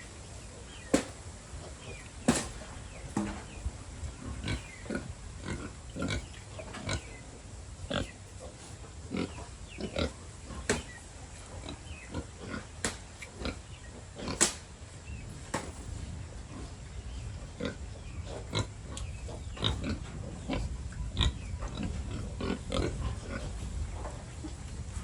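Pigs grunting, with many short, sharp clicks and smacks at irregular intervals over a low rumble that grows louder in the last third.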